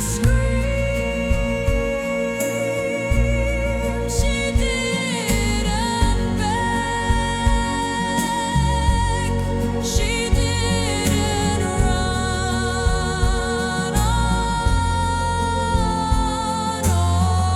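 Dark folk / neoclassical music: long held melody notes that step between pitches, over a steady drum beat.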